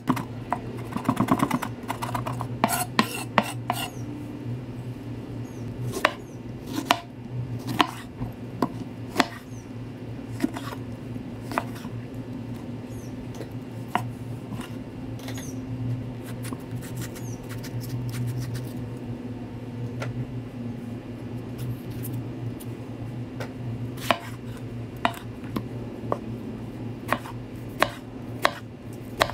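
Chef's knife chopping and slicing on a wooden cutting board. A quick run of strokes comes in the first couple of seconds, then single sharp knocks of the blade on the board, spaced out as herbs, lemon and tomato are cut.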